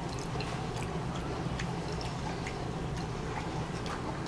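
Close-up chewing sounds: small, irregular wet clicks and smacks of the mouth, over a steady low hum.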